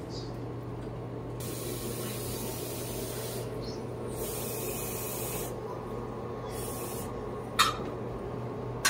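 Steady hissing noise over a low hum, brighter in two stretches of a second or two each, with a short sharp tap near the end.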